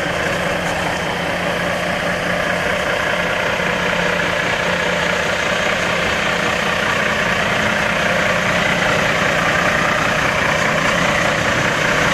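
Kenworth W900L semi truck's diesel engine idling steadily, growing slightly louder over the stretch.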